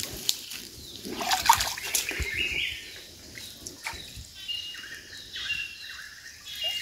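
Water trickling and splashing, with scattered small knocks and rustles, and a few short, high bird chirps.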